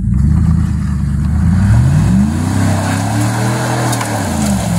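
Chevy Silverado pickup's engine revving up under load as it tows a broken-down van on a tow rope, its pitch climbing for about three and a half seconds and then dropping near the end.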